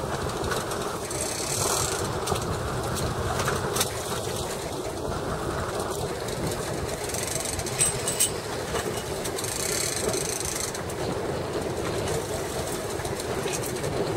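A fishing boat's engine running steadily, with a few sharp clicks.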